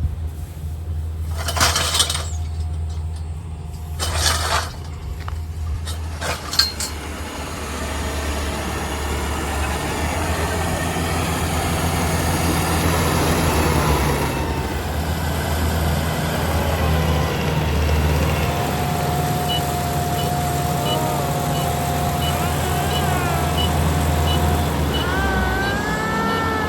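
Engine of a rice harvesting machine running steadily with a low hum, with a few sharp knocks in the first seven seconds.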